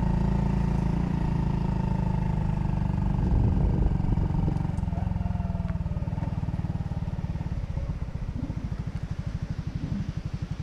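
Honda Cross Cub 110's single-cylinder four-stroke engine running steadily, then easing off. Over the last few seconds it settles into a slower, even putter as it slows down.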